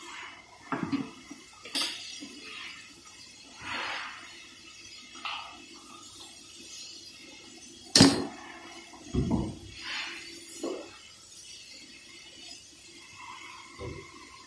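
Scattered metallic clinks and clanks of tools and parts being handled on a V8 engine under teardown, with one sharp, loud clank about eight seconds in and a few duller knocks just after.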